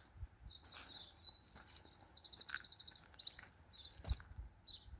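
A small songbird singing: high-pitched, rapid trills of quickly repeated notes and short twittering phrases. A faint low thump a little after four seconds in.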